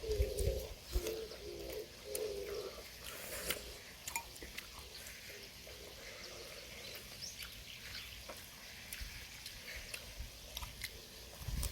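A dove cooing, a repeated low hooting phrase, for the first couple of seconds, then fading out. Faint scattered clicks and short high bird chirps follow.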